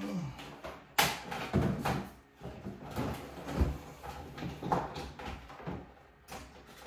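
Handling noise while a desktop USB-C charger's power cord is plugged in: a sharp click about a second in, then irregular knocks and rustling, with a low thump a little past halfway.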